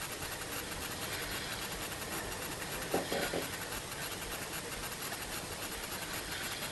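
Steady rush of water along a sailboat's bow, with wind on the helmet-mounted microphone. A brief faint voice is heard about three seconds in.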